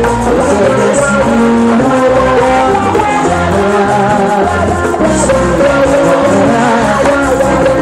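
Live cumbia band playing loudly, with steady bass, held keyboard and guitar notes and a sung voice.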